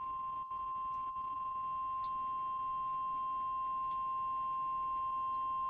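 Emergency Alert System attention signal: the National Weather Service's single steady high alarm tone, sounding unbroken at a constant pitch to announce a weather warning that is about to be read.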